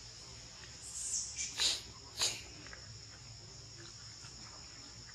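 Steady, high insect chorus, crickets or cicadas, with three short, sharp high calls or squeaks between about one and two seconds in.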